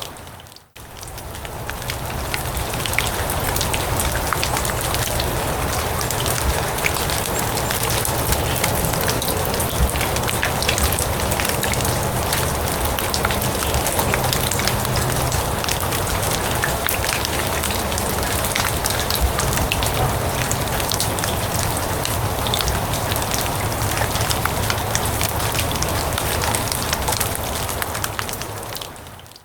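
Steady rain falling on grass and leaves, a dense hiss with many sharp individual drop ticks and a low rumble underneath. It dips out and fades back in just after the start, and fades down again at the end.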